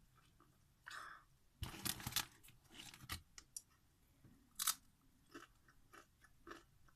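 Close-miked crunching of Doritos tortilla chips being bitten and chewed: a dense run of crunches, one loud crack a little before the middle of the second half, then lighter chewing crunches.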